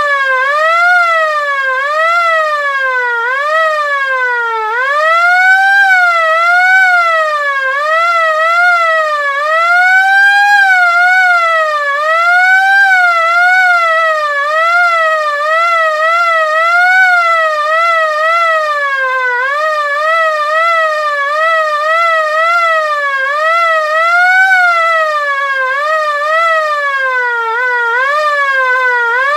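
LK-JDW105 air raid siren sounding, its pitch rising and falling over and over, roughly once a second, with a few slower, longer climbs in between.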